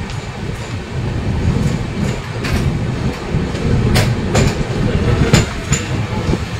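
Express passenger train running along the track: a steady low rumble with a handful of sharp clacks as the wheels pass over rail joints.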